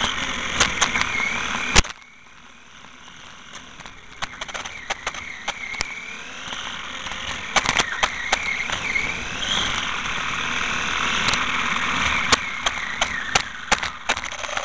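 Onboard sound of a Venom GPV-1 RC motorbike: its electric motor whines, rising and falling in pitch with speed, over tyre noise on rough asphalt and many scattered clicks and knocks. A sharp knock comes about two seconds in; after it the sound drops and the whine builds back up.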